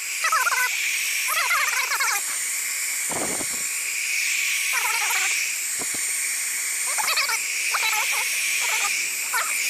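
A small handheld craft heat gun (a Stampin' Up embossing heat tool) running steadily with a fan hiss and a high whine, shrinking heat-shrink tubing over a well pump wire splice. Short chirps, like small birds, come and go over it.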